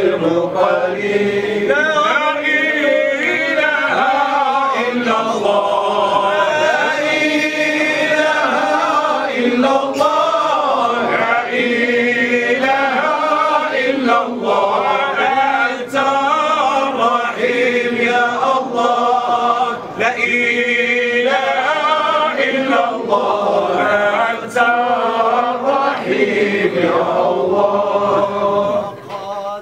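A group of men singing Sufi devotional chant together in unison, unaccompanied by any instrument.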